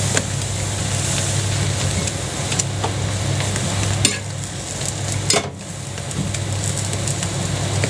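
Jianbing batter and egg sizzling on a gas-heated griddle over a steady low hum, with a few sharp clicks of utensils against the griddle.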